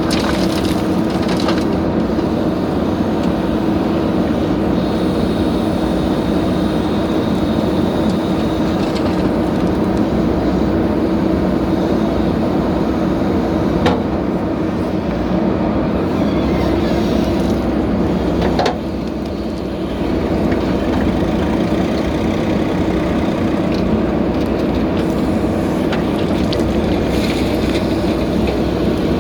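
Heavy diesel engine of earth-moving machinery running steadily with a constant hum, dipping briefly in level about two thirds of the way through.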